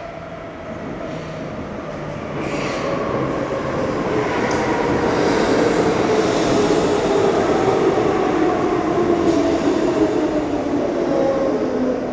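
Hamburg U-Bahn DT3 metro train running past close by, its wheel and rail noise growing louder toward the middle, with a motor whine that slides slowly down in pitch and a few light clicks.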